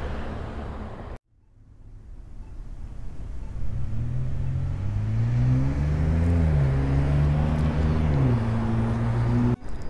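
A road vehicle's engine running, its pitch climbing about halfway through and dropping back near the end. Before it, the outdoor sound cuts off abruptly about a second in, and the engine sound fades in after the break.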